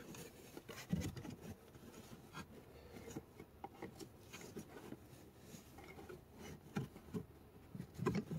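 Faint rubbing and scraping with a few small knocks as a pleated cabin air filter is pushed by hand into its housing slot behind the dashboard trim.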